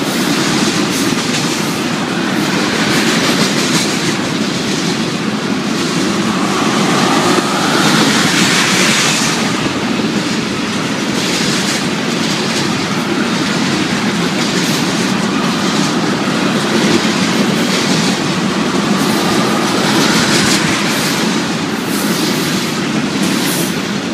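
Railroad tank cars of a unit train rolling steadily past close by: a continuous rumble of steel wheels on rail with clickety-clack over the rail joints. Faint wheel squeal comes in twice, about a third of the way in and again near the end.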